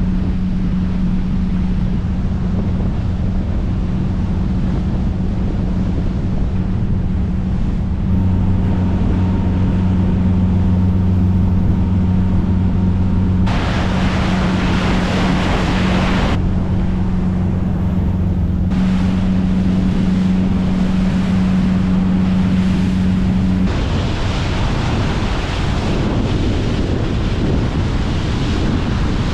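Motor boat running fast under power: a steady low engine drone under the rush of wind on the microphone and water off the hull. The rush swells loud in stretches, and the drone fades out near the end.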